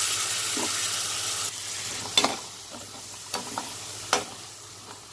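Onion-tomato masala sizzling in a pan while a spatula stirs in yogurt, scraping and knocking against the pan several times. The sizzle drops off about a second and a half in.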